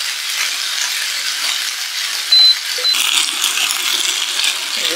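Pork and vegetables sizzling in a frying pan on an induction hob while a turner stirs and clinks against the pan. A little past halfway the hob beeps twice, a longer beep then a short one, as its heat is turned down.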